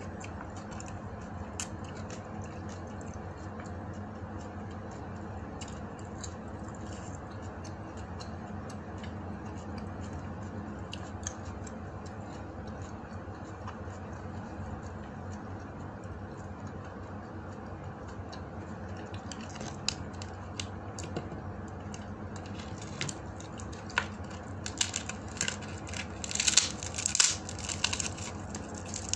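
Dried fish (danggit) being torn apart by hand: a run of crisp crackling and snapping that starts in earnest about two-thirds of the way in and is loudest near the end, over a steady low hum with sparse faint clicks before it.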